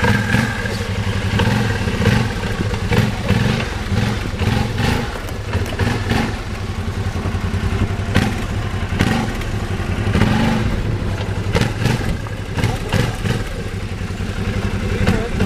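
Arctic Cat ThunderCat 1000 ATV's V-twin engine running, its revs rising and falling, with clattering knocks over it.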